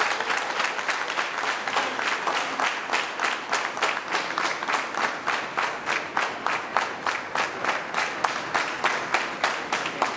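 Audience applauding: a dense burst of clapping that settles, about two seconds in, into fast rhythmic clapping in unison, about four to five claps a second.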